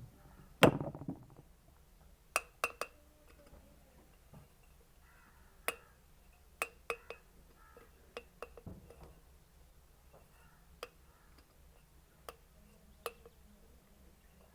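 Irregular sharp metallic taps and clinks, with one louder knock about a second in and a dozen lighter ones after it: tools working on a ceiling fan's metal cover to get the old, worn bearing out.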